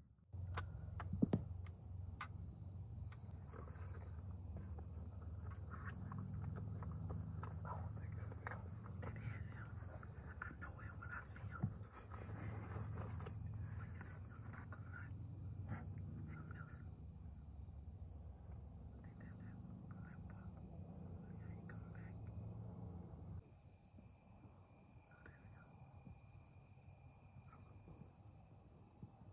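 A steady, high-pitched insect chorus throughout, with irregular crunching and rustling of footsteps in dry leaf litter and a low rumble of handling noise for most of the time, easing off near the end.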